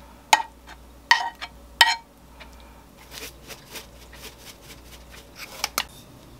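Metal spoon scraping and knocking against a frying pan and a ceramic bowl as curry risotto is served out, three sharp ringing clinks in the first two seconds. Then a run of softer taps from a small container shaken to sprinkle dried parsley, with one sharper click near the end.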